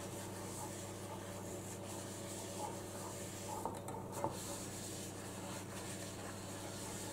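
Faint rubbing of a paper towel wiped round the cups of a metal muffin tin to oil it, with a few light taps about four seconds in, over a steady low hum.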